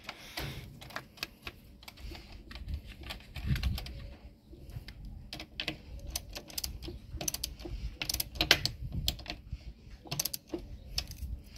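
Irregular small metallic clicks and taps from a small chrome socket wrench turning the clamp bolt on a car battery terminal as it is tightened down. The clicks come thickest in the second half.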